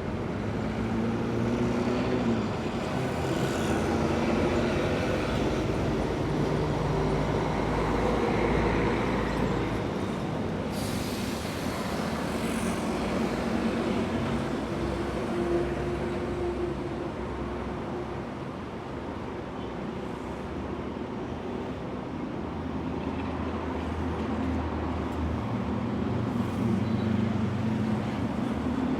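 Busy city street traffic: cars and heavier vehicles pass and idle, their engines rising and falling, with a sudden hiss starting about eleven seconds in.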